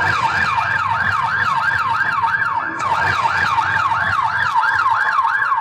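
Emergency-vehicle siren sound effect: a fast wail that rises and falls about three times a second, then cuts off suddenly at the end.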